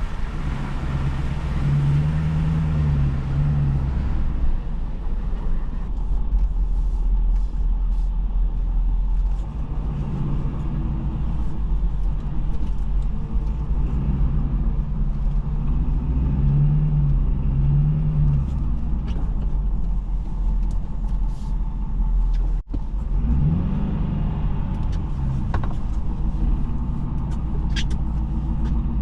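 Work truck's engine running with a steady low rumble, its pitch rising and falling several times as the truck drives and turns. The sound drops out for an instant about three quarters of the way through.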